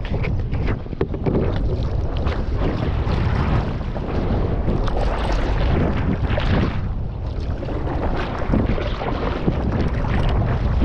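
Wind buffeting the microphone in a steady low rumble over the slosh and splash of choppy sea water against a kayak being paddled out.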